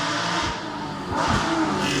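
Historic rally car engine at full throttle on a special stage, pulling hard and growing louder as the car approaches. The engine note eases off briefly around the middle, then comes back louder and climbing.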